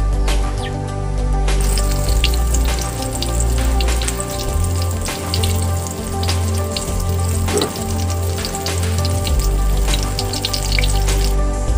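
Hot oil sizzling and spattering in a wok as battered eggplant deep-fries, full of small crackling pops, under background music with a steady bass line. The frying hiss grows louder about a second and a half in.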